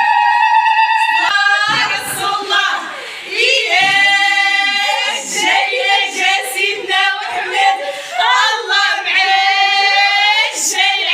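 A group of women singing together in long, high held notes that glide up into each note.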